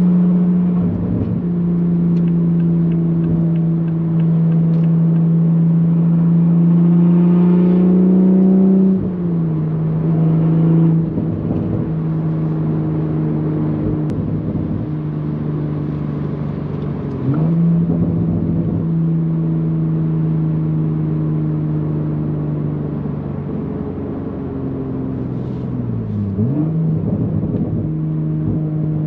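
Toyota A90 Supra's B58 turbocharged inline-six engine running through an AWE Touring Edition exhaust while driving. Its note climbs steadily for about nine seconds, then drops in pitch with a gear change. Twice more later on, the pitch dips briefly and settles again.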